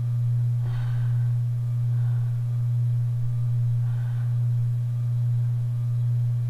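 A steady low hum, one unchanging tone, dominates throughout. A few faint soft sounds come over it about a second in and again near four seconds.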